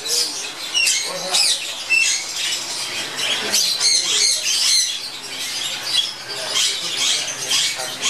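A flock of caged budgerigars chattering and squawking: a dense, unbroken stream of short chirps, warbles and screeches from many birds at once.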